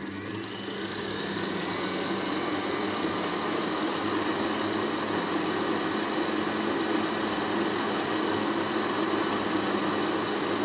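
Electric stand mixer whipping cream with its whisk in a stainless-steel bowl. The motor whine rises in pitch over the first couple of seconds as it speeds up, then runs steady and stops at the very end, as the cream reaches its whipped stage.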